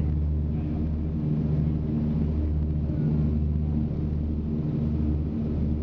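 Two Shvetsov ASh-62IR nine-cylinder radial engines of a Lisunov Li-2 running at climb power just after lift-off, heard from inside the cabin as a steady low drone. The drone swells and fades in a slow, regular throb about once a second.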